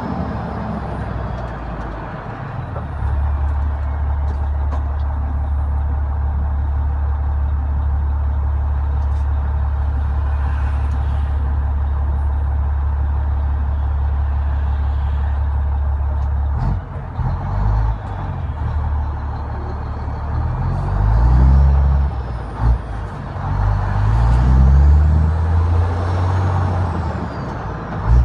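Renault Magnum truck's Mack E7 E-Tech diesel engine holding a steady note for a while. From just past halfway it revs up and drops back through several manual gear changes on the ZF 16-speed gearbox, with a faint turbo whistle rising and falling.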